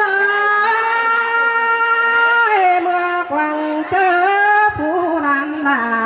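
A slow melody of long held notes: the first is held for about two and a half seconds, then the line steps and glides downward, wavers briefly, and settles on a lower held note near the end.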